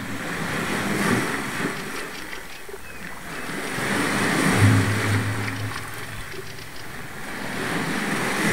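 Rushing noise that swells and fades twice, like wind gusting on the microphone, with a short low hum about four and a half seconds in.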